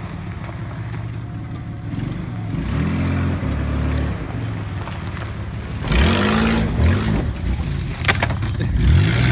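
Toyota 4x4 truck engine revving hard under load, rising and falling in pitch several times as the truck pushes up through brush, with a short sharp knock about eight seconds in.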